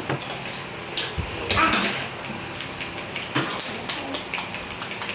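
Scattered small clicks and crackles of boiled balut eggshells being cracked and peeled by hand, with people talking at the table.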